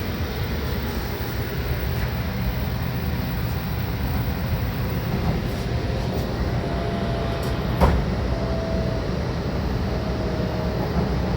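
Shinkansen train noise from a JR Kyushu train set: a steady low rumble, with one sharp click about eight seconds in.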